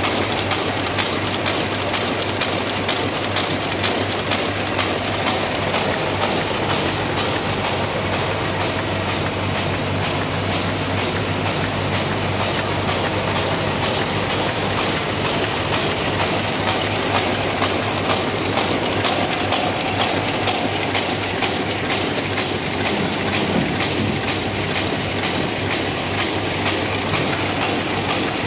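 Smithe Machine Co. envelope machine running at production speed: a steady, dense mechanical clatter of rapid clicks over a constant low hum.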